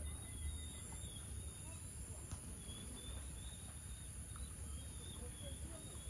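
Rural outdoor ambience over flooded paddy fields: a steady high-pitched insect drone, with scattered faint bird chirps and faint distant voices.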